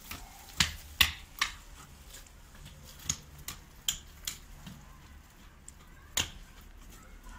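Hand hoe striking stony soil: about eight sharp knocks of the blade into the ground, coming in quick runs about a third of a second apart. The loudest are about a second in, and there is one more near the end.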